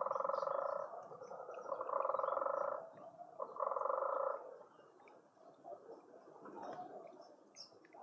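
An animal call: three rapid pulsed trills of about a second each, at the start, about two seconds in and near the middle. Small birds chirp faintly and briefly throughout.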